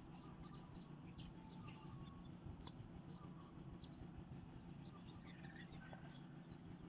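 Faint, scattered chirps of small birds over a steady low background rumble.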